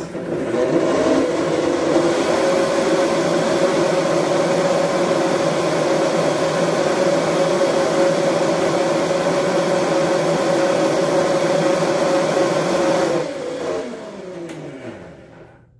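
High-speed countertop blender running at full speed, blending a liquid salad dressing with a steady loud whine. About thirteen seconds in it is switched off, and the whine falls in pitch as the motor winds down.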